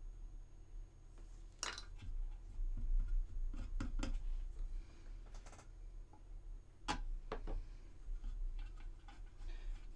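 Scattered small clicks and short rubbing sounds of hands working on a resin model: a super glue tube being handled at a seam and fingertips rubbing glue and powder into the cracks, over a low steady hum.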